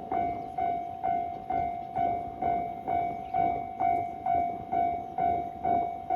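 Japanese railway level-crossing warning bell ringing in a steady repeating clang, a little over two strokes a second, each stroke a bright ringing tone that fades before the next. It is signalling that a train is approaching and the crossing is closed.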